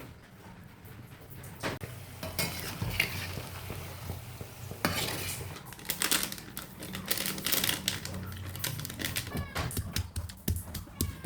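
Kitchen utensils clinking, knocking and scraping against bowls and pans, a busy string of clicks starting a couple of seconds in.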